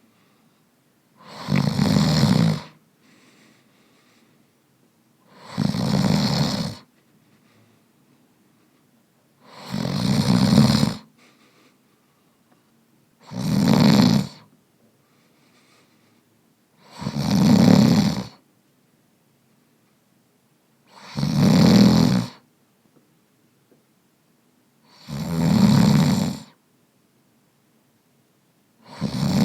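A person snoring in a steady rhythm, one snore about every four seconds, each lasting about a second, with quiet gaps between.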